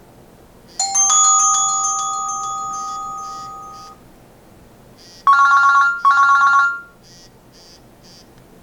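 Nokia 6700 Classic alert tones from the phone's speaker. A bell-like chime of several notes sounds about a second in and fades out over about three seconds. About five seconds in come two short, loud tones back to back.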